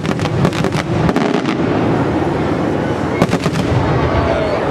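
Aerial firework shells bursting in quick succession: a dense, continuous rumble of explosions cut by strings of sharp bangs and crackles, with one cluster in the first second and another about three seconds in.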